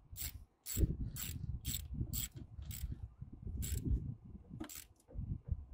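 Hand ratchet clicking in short back-strokes, about two a second with a pause near the middle, as a 10 mm battery terminal nut is tightened on a lawn tractor.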